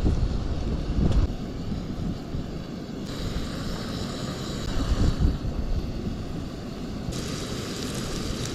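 Steady sizzle of coated trout chunks frying in oil, stepping up in level abruptly about three seconds in and again about seven seconds in, under wind buffeting the microphone in low gusts.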